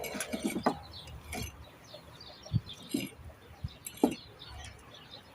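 Birds chirping in short scattered calls, with a few light knocks among them.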